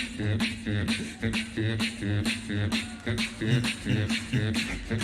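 Beatboxing: a steady beat of sharp vocal snares, about three a second, over pulsing bass and hummed tones.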